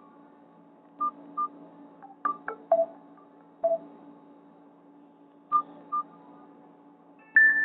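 Short electronic beeps and a few sharp clicks from a Nokia 216 phone's speaker, scattered irregularly, over a steady low hum. A new ringtone melody starts near the end.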